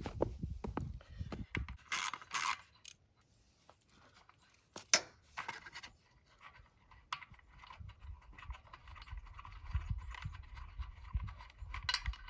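A 10 mm socket wrench loosening a bolt on the back of a generator's air filter box, with irregular clicks, knocks and scrapes of metal and plastic as the part is worked.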